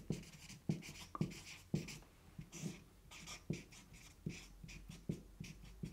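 Felt-tip marker writing on a sheet of paper on a wall: short scratchy strokes, each with a light tap as the tip meets the paper, about two a second.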